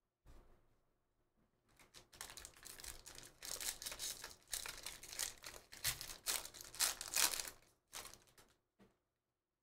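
Foil wrapper of a Bowman baseball card pack being torn open and crinkled as the stack of cards is pulled out: a rapid crackling that starts about two seconds in, is loudest in the middle and stops shortly before the end.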